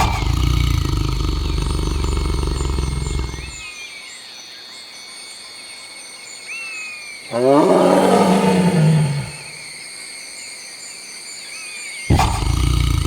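Tiger roaring. A deep low rumble starts abruptly and lasts about three and a half seconds. About seven seconds in comes a louder roar that rises and then falls in pitch, and another deep rumble starts near the end. Bird calls and a steady high whine can be heard in the quieter gaps.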